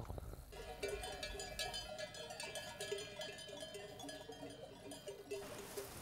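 Bells on a grazing flock of sheep clanking irregularly, several bells at different pitches ringing over one another. Shortly before the end the bells stop and a steady hiss takes over.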